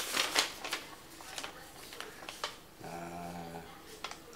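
Paper rustling and crackling as a folded instruction sheet is opened and handled, followed by a short, low, steady hum lasting under a second.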